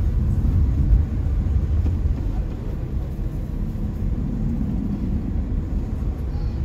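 Low, steady rumble of car traffic and road noise on a city street, a little louder in the first second or so.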